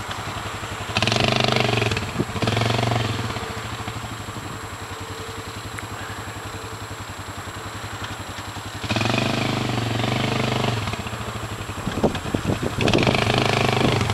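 Suzuki King Quad ATV's single-cylinder four-stroke engine idling, revved in four short bursts of throttle: about a second in, near three seconds, around nine seconds, and near the end.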